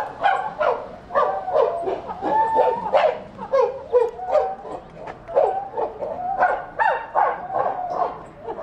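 Chimpanzees giving a rapid series of short, pitched calls at feeding time, each one rising and falling, with knocks and clicks between them.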